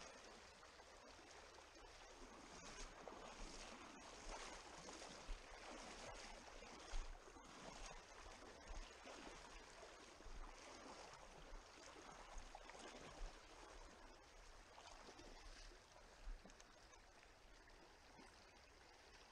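Faint, steady rush of a shallow stream running over stones, with a few short knocks now and then.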